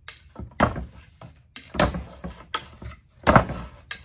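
Nylon zip ties snapping one after another as a Benchmade Claymore's D2 blade slices through them against a wooden board: about five sharp cuts in quick succession, each with little effort.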